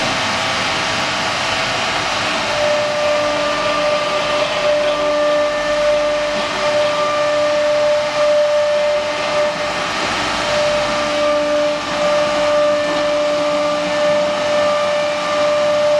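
4-axis ATC CNC router running, its spindle giving a steady whine over a continuous hiss of machining noise. The whine drops slightly in pitch a couple of seconds in.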